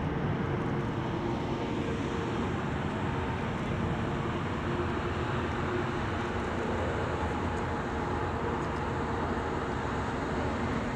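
Jet engines of a six-jet aerobatic formation flying overhead: a steady rushing noise with faint steady tones running through it.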